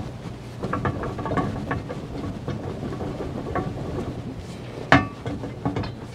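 Propeller being lapped onto its tail-shaft taper: the prop is twisted back and forth by hand on the lapping compound, making irregular gritty scraping and metal clicks. There is one sharp metallic knock just before five seconds in, over a steady low hum.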